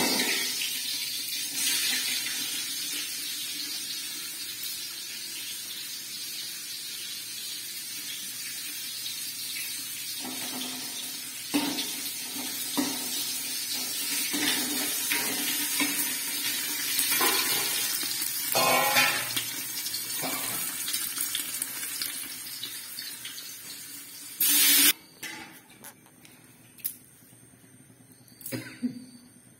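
Lentils frying in oil in a steel wok, a steady sizzle with occasional clinks of a spoon against the pan. About 25 s in, there is a brief loud burst, then the sizzle stops and only a few clinks remain.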